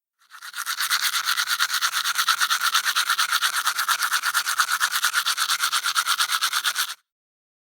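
Toothbrush scrubbing teeth in quick back-and-forth strokes, about eight a second. It fades in, holds an even rhythm, and stops abruptly near the end.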